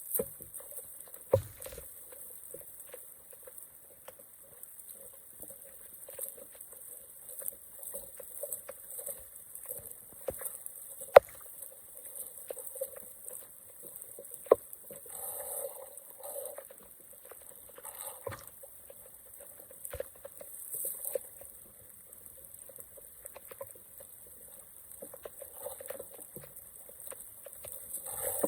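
Water trickling and pattering, with a few sharp knocks scattered through it.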